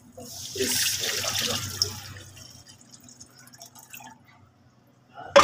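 Meat stock poured from a pot into a wok of hot oil and fried onions, sizzling hard as it first hits the oil and settling within about two seconds to the splash of the pouring stream. A sharp knock near the end.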